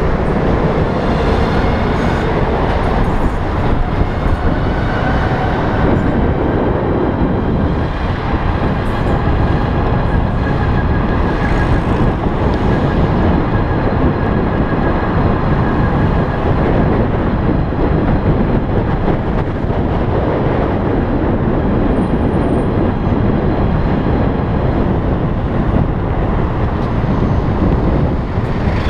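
Continuous loud wind and road noise from riding an electric bicycle, with a faint high whine through the middle stretch.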